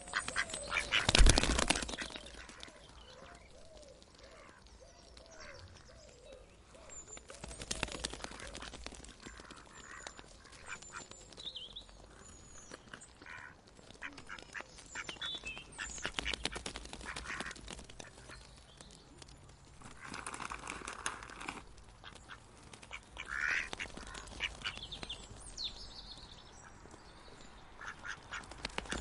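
Ducks quacking in scattered bursts of repeated calls, the loudest burst about a second in.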